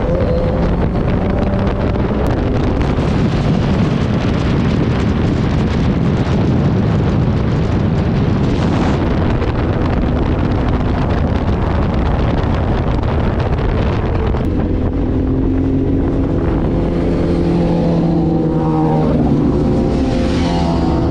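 Sport motorcycle riding along, with heavy wind rushing over the microphone. In the last few seconds the engine note rises and falls as the throttle changes.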